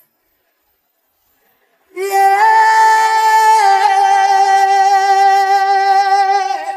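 Solo male voice with no accompaniment: after about two seconds of silence, a long held sung "ê" vowel that dips in pitch partway through and slides down at the end.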